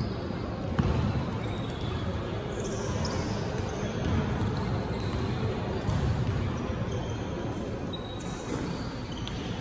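A basketball bouncing on a hardwood-style gym floor in a large echoing hall, with a sharp knock about a second in. Voices murmur in the background.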